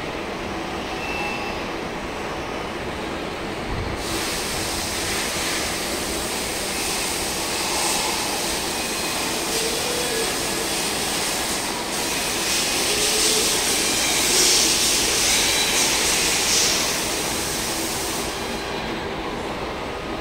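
Steady machinery noise in an industrial robot workshop, with a hiss that comes in sharply about four seconds in, swells in the middle and fades near the end.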